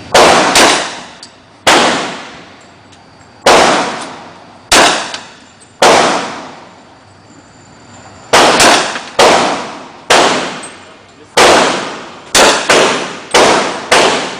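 A Ruger PC4 pistol-calibre carbine in .40 S&W fires about fifteen shots at an uneven pace, some in quick pairs, each report trailing off over about a second.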